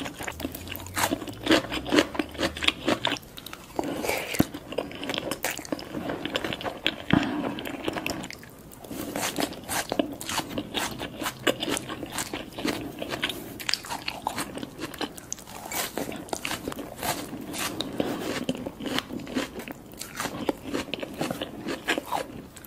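Close-miked eating: a person biting and chewing sushi rolls with crispy fried toppings, making many quick, irregular crunches and wet chewing sounds, with a short lull partway through.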